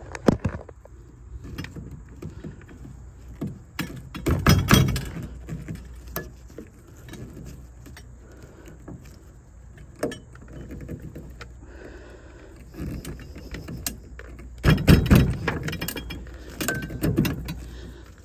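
Chrome metal tubes of a soft-top folding frame clinking, scraping and clicking as they are handled and slid together. There are louder clattering bursts about four seconds in and again about fifteen seconds in.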